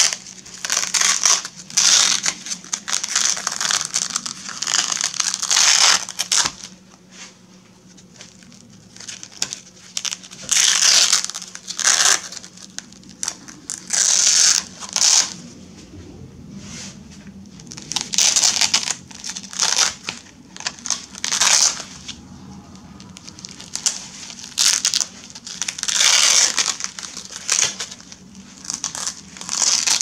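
Velcro hook-and-loop straps on Woof Wear horse boots being ripped open again and again: a harsh, high ripping rasp in repeated bursts of up to a couple of seconds, with short pauses between.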